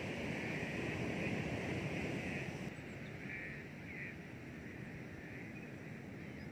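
Steady outdoor ambience: a continuous rushing noise with a higher steady hiss above it, dropping slightly in level about two and a half seconds in.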